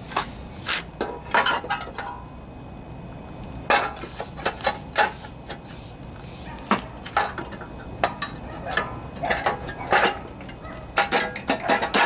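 Engine cover with recoil pull-starter being fitted back over the flywheel of a Briggs and Stratton lawnmower engine: scattered clinks, knocks and rattles in several clusters as it is worked into place.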